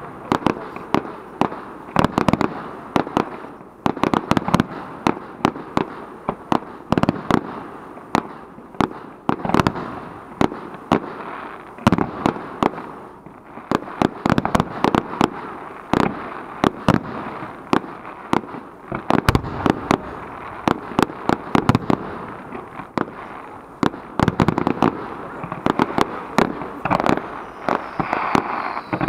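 Aerial fireworks display: a rapid, irregular string of shell bursts and bangs, several a second, with crackling in between.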